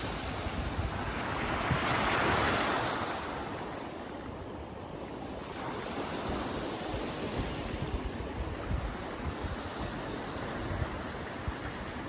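Small waves breaking and washing over a pebble beach, with one louder wash about two seconds in. Wind buffets the microphone throughout.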